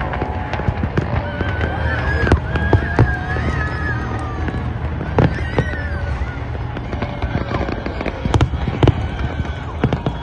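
Aerial fireworks going off in an irregular series of bangs and crackles, with loud clusters a couple of seconds in and again near the end, over the low rumble of the display and crowd.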